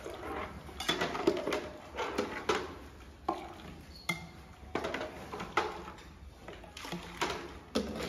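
A metal measuring jug repeatedly knocking and scraping against steel milk buckets as buffalo milk is scooped from one bucket and poured into the other, a jugful at a time to measure it. The sharp metal knocks come about once a second, with milk splashing and pouring between them.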